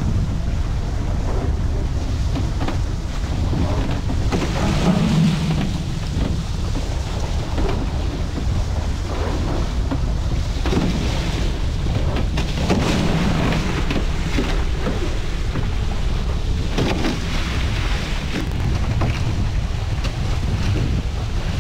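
Wind buffeting a GoPro's microphone on a foiling A-Class catamaran sailing at speed, a steady low rumble, with water hissing past the hulls and rising now and then in brief louder stretches.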